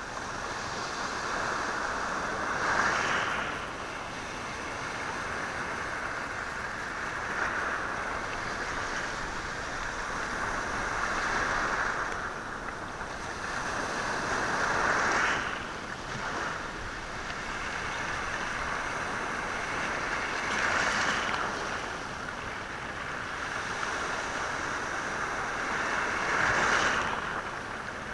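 Sea waves washing over a rocky, stony shore: a continuous hiss of surf that swells louder every five or six seconds as each wave runs in, with stones stirred in the wash.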